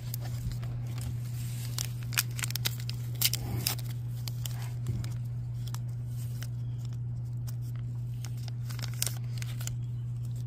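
Crimp-sealed plastic blind-bag packet being torn open and crinkled by hand: a run of sharp crackling tears in the first five seconds, then a few more near the end. A steady low hum runs underneath.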